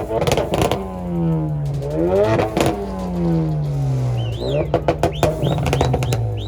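Car engine revving through its exhaust: the pitch falls as the revs drop, climbs in a quick rev about two seconds in, then falls again. Sharp exhaust crackles come near the start and again from about four and a half seconds.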